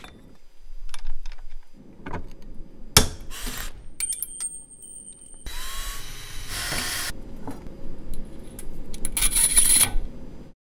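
Workshop tool noises on a copper tube held in a bench vise: a small power drill's motor hums underneath, with a sharp click about three seconds in and several stretches of scraping, rasping metal. The sound cuts off suddenly near the end.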